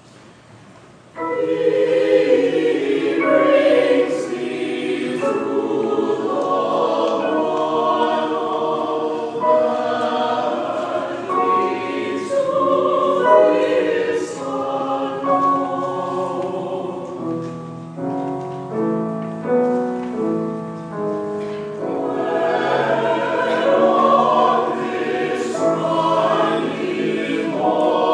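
Church choir singing a hymn or anthem, many voices entering together about a second in and holding long, sustained notes.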